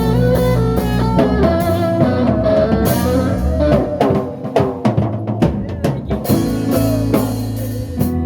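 Live band music through a PA: electric guitar and bass over a drum kit, with kick and rimshot hits and drum fills cutting in over the middle of the stretch.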